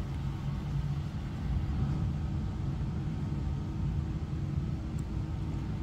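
Steady low background rumble with a faint, even mechanical hum running under it, unchanging throughout.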